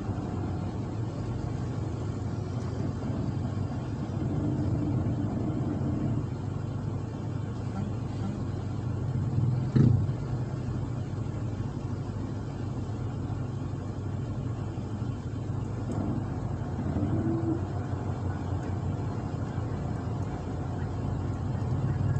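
Car engine idling, heard from inside the cabin as a steady low hum, with one short thump a little under halfway through.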